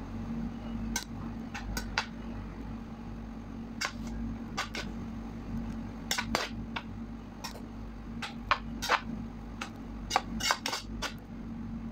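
A slotted metal spoon scraping and knocking against a pan as rice and sautéed shrimp are stirred together. The clinks and scrapes come irregularly, over a steady low hum.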